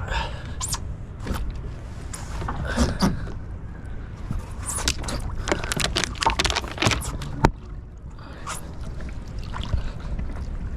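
Water splashing and lapping, with a clustered run of splashes in the middle, over a steady rumble of wind on the microphone.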